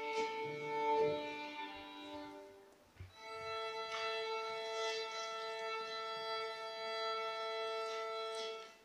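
Solo violin played with the bow: a short phrase that fades away, a brief break about three seconds in, then one long held note that stops near the end.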